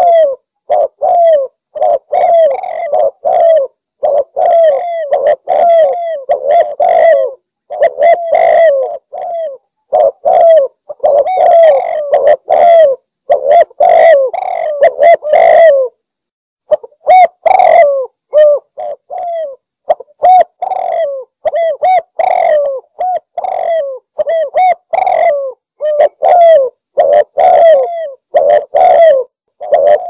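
Spotted dove cooing, a dense, loud string of repeated coo phrases. Between phrases the sound drops to dead silence, with one longer gap about halfway through.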